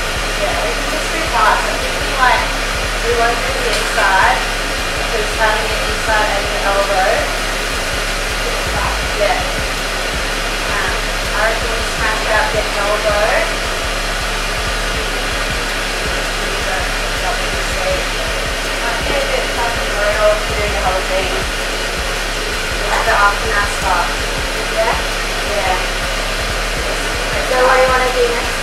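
Steady rush of air from a skin-cooling air chiller blowing through its hose, with a voice heard faintly over it now and then.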